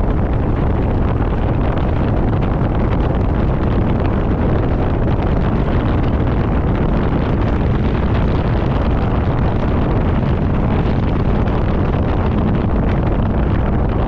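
Car driving on a snow-covered highway: a steady, loud rumble of tyres on packed snow and running engine, mixed with wind noise.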